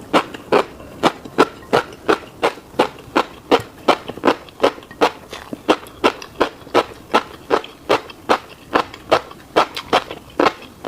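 Close-miked chewing of a mouthful of fish roe and rice: a steady run of crisp, wet clicks, about three a second.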